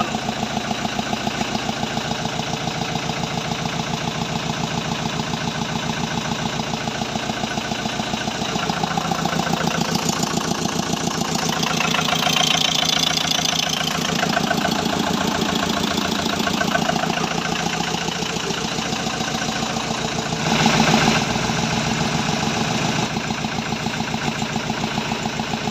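Diesel engine of a BOMAG BW 100-AD roller idling with a steady, even pulse, a little louder for a few seconds around the middle, with a brief louder noise about twenty seconds in.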